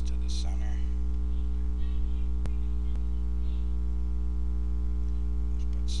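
Steady electrical mains hum with its overtones, with two sharp computer mouse clicks about half a second apart in the middle.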